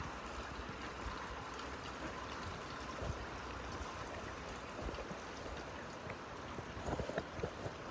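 Steady hiss of light rain falling, with a few faint taps near the end.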